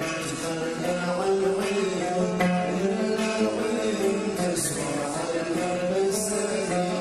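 Traditional Yemeni song music: melodic instruments over a steady percussion rhythm.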